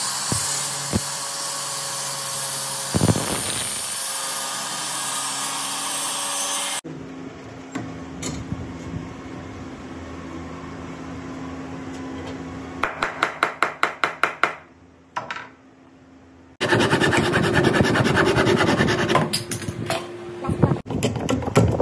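Woodworking on cricket-bat willow, in several cut-together takes. A mitre saw runs steadily for the first several seconds. Later comes a quick run of rubbing strokes of a hand tool on the wood, about five a second, then a short lull, then dense scraping strokes of hand-shaping near the end.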